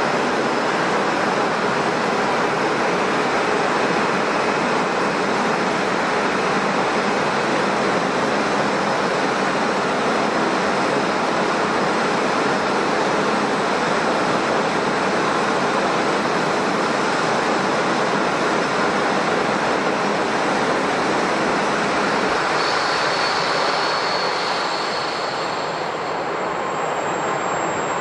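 Airliner engines running with a steady, loud roar. It eases slightly near the end as a thin, high whine comes through.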